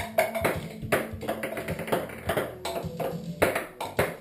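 Music playing with a run of sharp, irregular taps of small plastic balls hitting a wooden tabletop.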